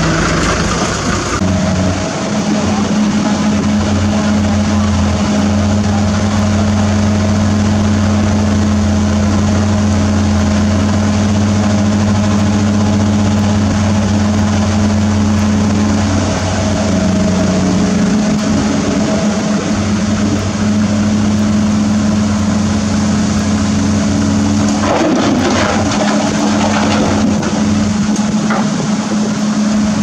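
Heavy diesel engine of a Mitsubishi Fuso dump truck running steadily at idle while it stands for loading. A short rough burst of noise comes through about 25 seconds in.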